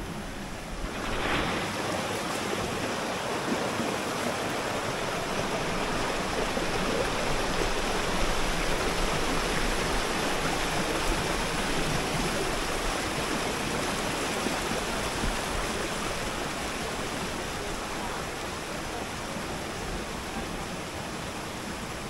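Waterfall rushing, a steady hiss of falling water that swells about a second in and then holds.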